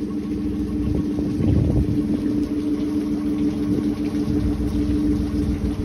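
Suzuki 40 hp four-stroke outboard motor, a three-cylinder engine, idling steadily at an even speed.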